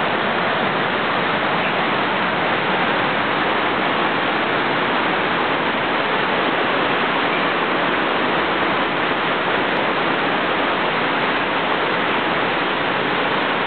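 Steady, even hiss at a constant level, with no distinct events and no meowing.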